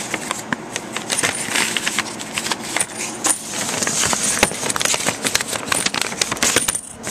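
Paper letter and envelope rustling and crinkling as they are handled, with many small irregular clicks and light clinks of quarters.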